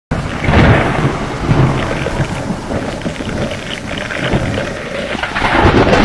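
Hurricane storm: heavy rain hissing steadily, with low rumbling surges about half a second in and again near the end.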